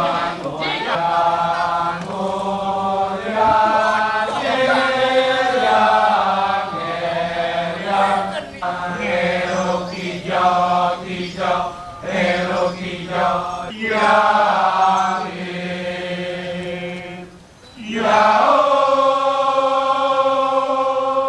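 Balinese dance performers chanting in chorus, a mass of voices holding long sung notes and sliding between pitches over a steady low drone. The chanting drops away briefly near the end, then comes back in full.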